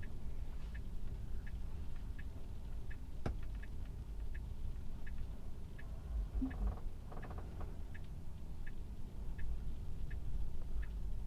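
Tesla turn-signal ticking inside the cabin, a bit less than one and a half ticks a second, as the car steers itself into a parking space, over a low rumble of the car creeping over snow. A single sharp click about three seconds in.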